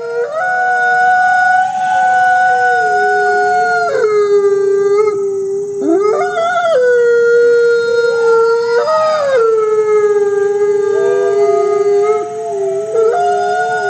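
A chorus of canine howls: several long, overlapping howls held at different pitches, sliding from one note to another now and then.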